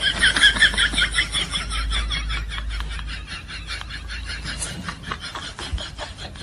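Wind rumbling on a phone microphone, with a quick, even run of thuds such as footfalls running on dry ground. High wavering cries sound over it for the first second or so, then fade.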